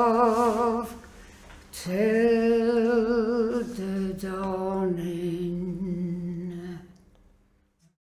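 A solo voice sings the closing held notes of an unaccompanied traditional Irish song, with wide vibrato. A breath comes just before two seconds in, then the notes step lower and the last one fades out about seven seconds in.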